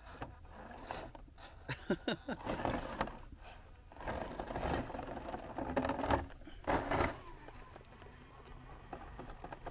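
1/10-scale Element RC Enduro Trailrunner crawler climbing a sandstone rock slowly. Its tyres scrape and crunch over rock and dry leaf litter, with irregular clicks and scrapes that come thicker about halfway through.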